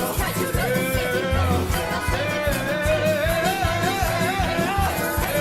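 Song with accordion, bass and drums keeping a steady beat, while a long note wavers with vibrato across most of it, the held end of the chorus.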